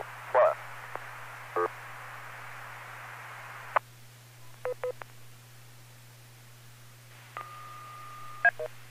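DTMF touch-tone control tones over a radio link with steady background hiss: a few short tone blips about halfway, then a steady tone lasting about a second near the end, followed by two quick bursts. These are remote-base control tones being sent to retune the remote base.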